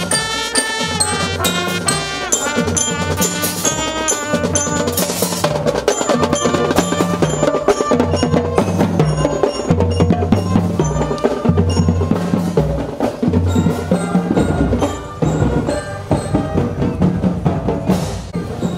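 Student marching band playing: trumpets and mellophones carry a melody over chiming marching bell-lyres (glockenspiels) and drums. The horn melody is clearest in the first few seconds, after which drums and bells carry on.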